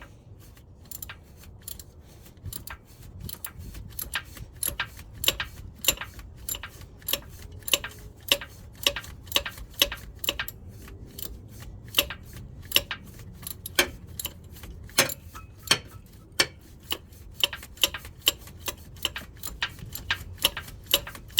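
Socket ratchet clicking in short back-and-forth swings as it tightens a bolt, only a couple of clicks per swing because there is little room to turn it. Sharp clicks come a few a second, often in pairs.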